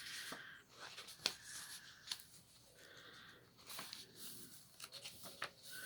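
Faint rustling of thick paper pages and tags in a handmade journal as they are handled and turned, with a few soft clicks and taps.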